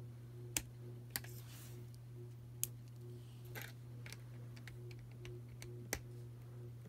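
Lego plastic pieces clicking and tapping as figures are pressed onto a built set: four sharper clicks with lighter ticks between them. A steady low hum runs underneath.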